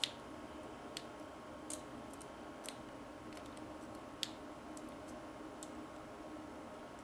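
Diamond pick working the pins inside an old Yale padlock: a few faint, sharp metallic clicks, spaced about a second apart, over a faint steady hum.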